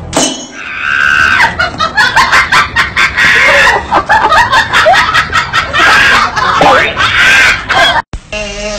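Loud, high-pitched shrieking and cackling cries in a rapid, uneven run that cuts off suddenly about eight seconds in.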